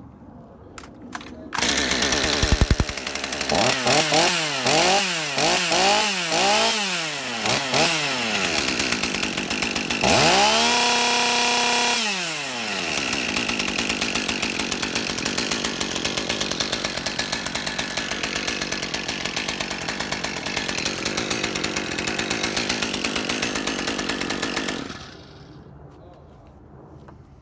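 Stihl MS201TC-M two-stroke top-handle chainsaw, its M-tronic no-start fault cured by a new wiring harness, starting on a single pull. It is blipped up and down about five times, held at high revs for about two seconds, then settles into steady running before it is shut off near the end.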